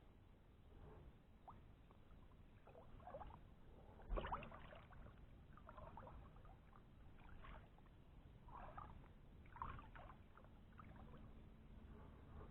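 Faint, near-silent kayak and water sounds: scattered small knocks and light water noises, with one sharper thump about four seconds in.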